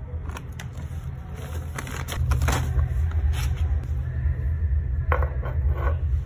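Short clinks and rattles of a plastic pet bowl and a small cup being handled and set down, over a steady low hum that gets louder about two seconds in.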